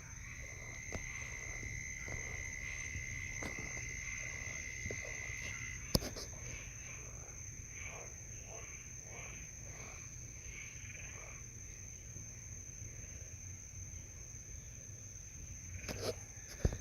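Night insects droning steadily at a high pitch, with a second, lower steady tone that stops about six seconds in. Two sharp clicks, one about six seconds in and one near the end, from a handheld phone being handled.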